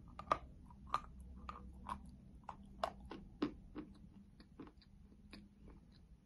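A person biting off a chunk of chalk and chewing it with crisp crunches, about two a second. The loudest crunch is the bite just after the start, and the crunches thin out toward the end.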